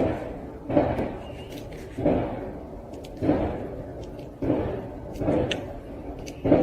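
A series of dull thumps or bangs, about one a second, each starting suddenly and dying away quickly.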